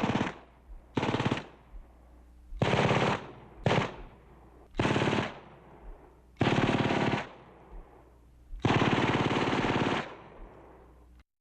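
Automatic gunfire: a machine gun firing seven short bursts of rapid shots, each trailing off after it stops, the last and longest lasting over a second.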